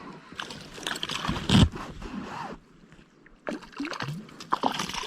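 Water splashing and sloshing with irregular knocks as a hooked brook trout is played in at the boat, with one loud thump about a second and a half in and a short lull in the middle.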